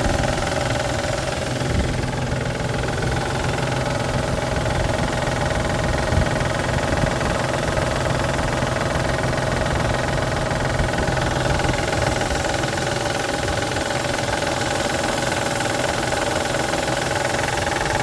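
1999 Isuzu VehiCROSS's V6 engine idling steadily with a knocking noise, the sign of a collapsed timing belt tensioner and a failing water pump.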